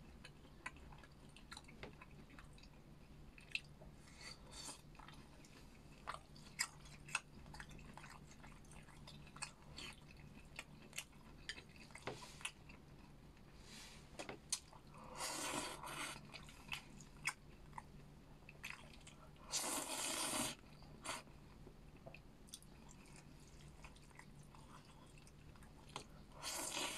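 A person eating close to the microphone: chewing stir-fried noodles and pan-fried pork, with many small wet mouth clicks and a few longer, louder bursts of mouth noise about 15, 20 and 27 seconds in. A steady low hum runs underneath.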